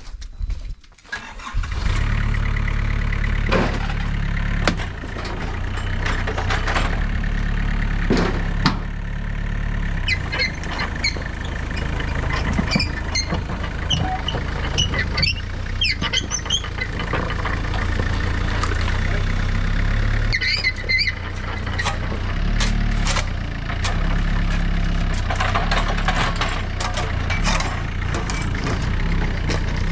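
John Deere 50ZTS mini excavator's diesel engine starting about a second and a half in, then running steadily as the machine works, backfilling dirt with its blade. Short high squeaks and clinks come now and then over the engine.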